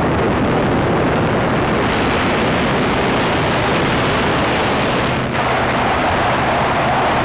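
Powered parachute's engine and propeller running steadily in flight, heavily overlaid by wind rushing on the microphone.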